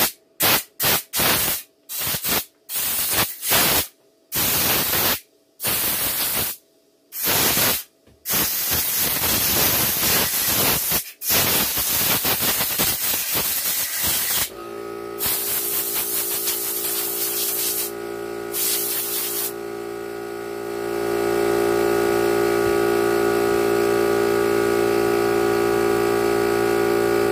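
Old two-stroke chainsaw being pull-started: a run of short pulls with pauses between them, then the engine catches and runs unevenly for several seconds before settling into a steady idle, which gets louder about 21 seconds in.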